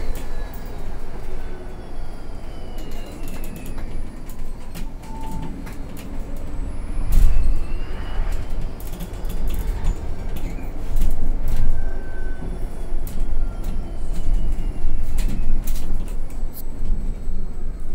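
Interior ride noise of a Mercedes-Benz eCitaro battery-electric bus under way: a steady road rumble with many small rattles and creaks from the fittings. A faint whine from the electric drive glides down in pitch early on and rises again around the middle.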